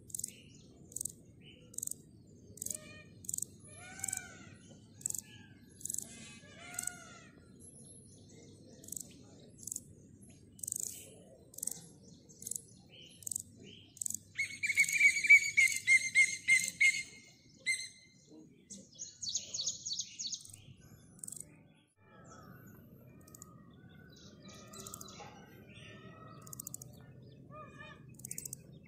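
Grasshopper stridulating: short, high-pitched chirps repeating a little more than once a second, with birds chirping around it. A loud burst of bird song comes about halfway, and the grasshopper's chirps thin out after it.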